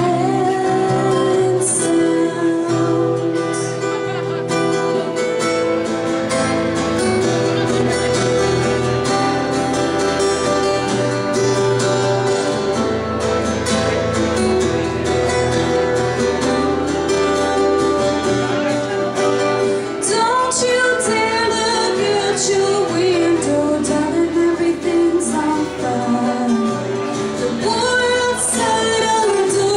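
Live acoustic duo: two acoustic guitars played together under a woman's singing voice.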